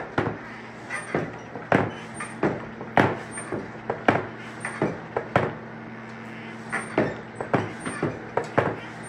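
Coal forge fire burning with a steady hum and hiss while the iron heats. A run of sharp knocks or pops comes about one to two times a second.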